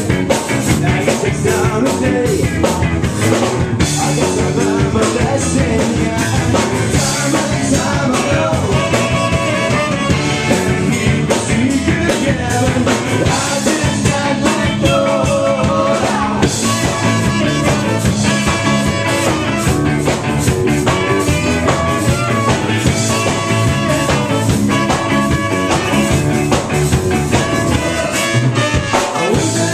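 Live rock band playing a song on electric guitar, bass guitar and drums, with a man singing at times.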